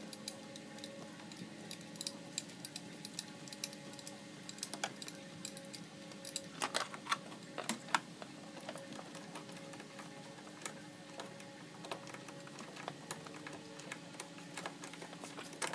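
Light clicks and clinks of hand tools on metal, scattered throughout with a thicker cluster about seven seconds in, over background music with steady held notes.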